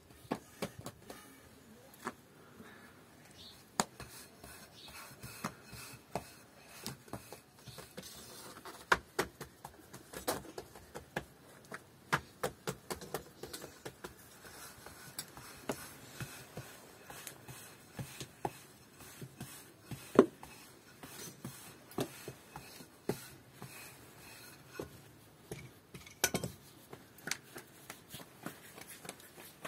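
Irregular light clicks and knocks, sometimes several a second, over a faint background, with a sharper knock about twenty seconds in and another near the end.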